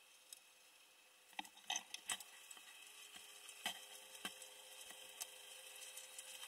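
Quiet scattered clicks and knocks close to the microphone, a small cluster about a second and a half in and a few single ones later, over a faint steady tone; no engine is running.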